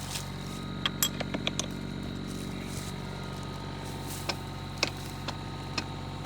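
Compact excavator engine idling steadily, with a run of light metal clinks and taps from the hitch pin being fitted on the auger attachment: a quick cluster about a second in, then single clinks about every half second.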